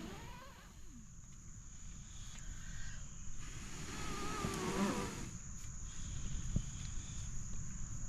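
Steady high-pitched drone of insects such as crickets, over a low rushing noise.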